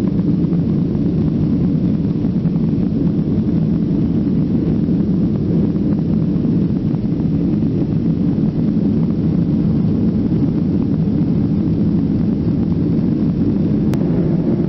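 Jet airliner cabin noise heard from a window seat just after takeoff: engine and airflow noise make a loud, steady low rumble.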